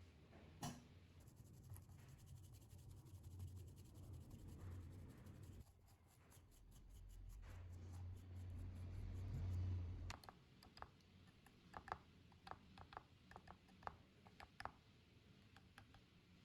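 A low hum that swells over a few seconds and cuts off suddenly, followed by a run of small, sharp clicks and taps.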